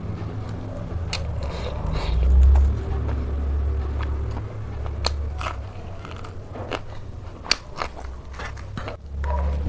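A person biting and chewing pork close to the microphone, with scattered sharp crunching clicks, the sharpest about seven and a half seconds in, over a low rumble.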